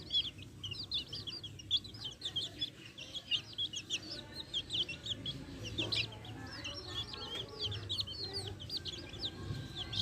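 Chickens: many chicks peeping in a rapid, unbroken stream of short, high, downward-sliding chirps, with hens clucking lower underneath.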